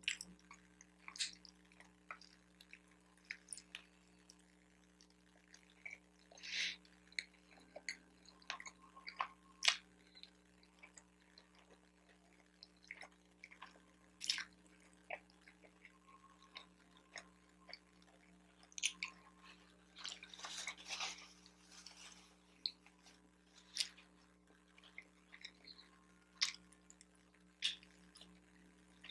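Close-miked chewing and wet mouth sounds of a person eating a bacon, egg and Swiss cheese sandwich on an everything bagel, with scattered short smacks and clicks.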